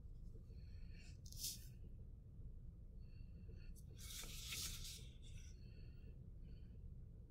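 Steady low hum in a quiet room, with two brief soft rustles, the louder one about four seconds in, as a plastic reagent bottle is picked up and handled.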